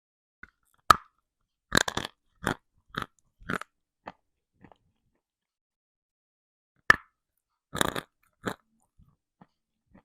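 Someone bites into a hard, dry piece of edible earth (chalk or clay lump) with a sharp crack and crunches it close to the microphone. A first bite about a second in is followed by four crunchy chews, and a second bite near seven seconds in is followed by two more.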